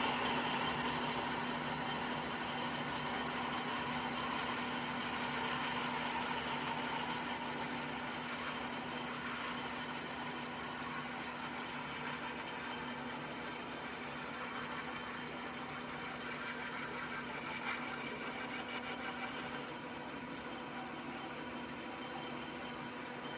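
Power drill running steadily with a high, constant whine as it bores out a cast iron thread insert in a pump impeller, cutting dry with no lubricant.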